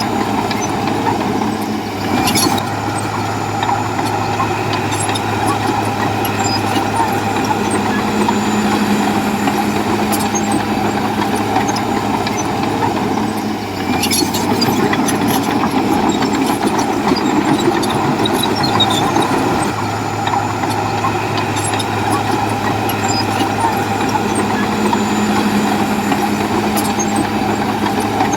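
Heavy diesel engine of a bulldozer running steadily under load. There are brief metallic clatters about two seconds in and again about halfway through, where the engine note dips and picks back up.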